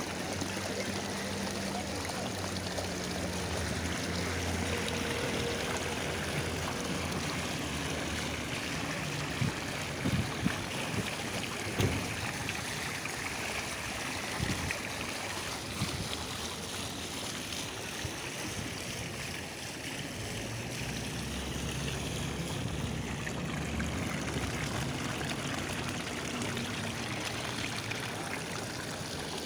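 Outdoor city street ambience: a steady rushing noise with a low engine hum near the start and again in the last third, and a few sharp knocks around the middle.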